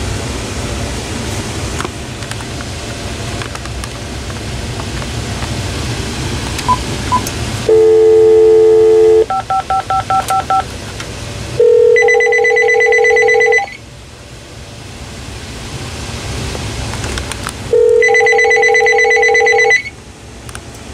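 A call being placed to a Uniden DXAI388-2 900 MHz cordless phone: a brief dial tone, a quick run of touch-tone digits, then the phone's electronic ringer rings twice, each ring about two seconds long, six seconds apart.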